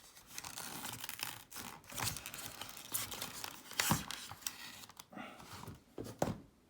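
Plastic packaging being handled and pulled away from a model locomotive: irregular crinkling and rustling with sharp crackles, quieting near the end.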